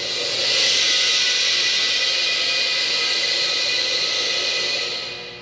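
Compressed air hissing loudly and steadily, mostly high in pitch, easing off near the end.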